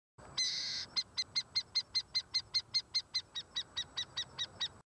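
Harpy eagle calling: one longer high note, then a rapid, even series of about twenty short, sharp, high calls, about five a second, growing a little weaker near the end.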